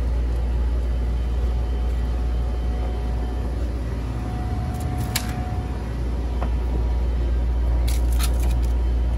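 A steady low rumble throughout, with a few short crackles of plastic packaging as bagged frozen chickens are handled, about five seconds in and again near the end.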